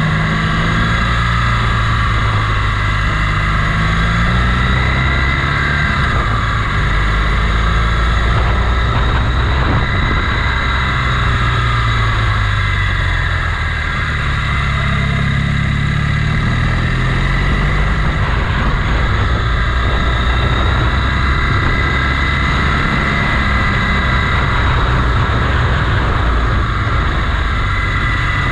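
Motorcycle engine running under way, its pitch rising and falling repeatedly with throttle and gear changes.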